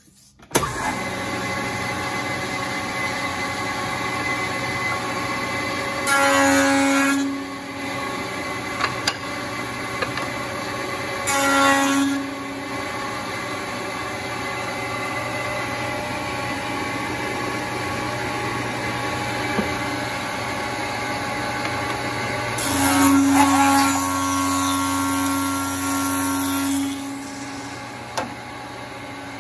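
Wood shaper switched on about half a second in and running steadily, with three louder passes as a board is fed through the spinning panel-raising cutter; the last cut lasts about four seconds.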